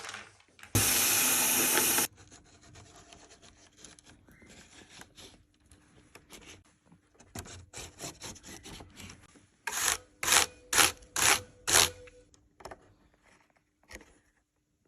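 Scrubbing and brushing while a mechanical keyboard is being cleaned. About a second in there is a loud hiss of about a second and a half that starts and stops abruptly. It is followed by faint scrubbing, then a run of about six brisk strokes roughly half a second apart.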